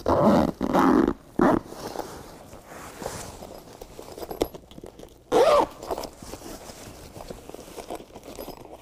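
The zipper joining a BedRug bed liner's sidewall to its floor piece being pulled shut a little at a time: three quick rasps right at the start and another about five seconds in, with quieter handling of the carpet and foam in between.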